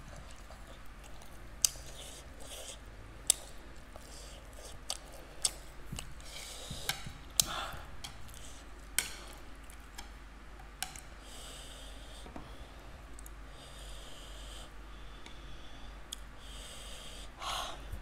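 Close-up eating sounds: chewing with several sharp clicks and mouth smacks, and loud huffing breaths and sniffs every few seconds from eating double-spicy noodles.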